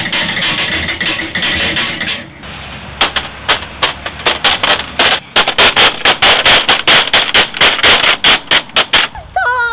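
Playground musical play pieces worked by hand: first a metal cylinder turned by its top handle gives a dense, fast clatter of clicks, then from about three seconds a panel of ball-ended metal pins gives a quick run of loud, sharp metallic clicks, several a second, stopping near the end.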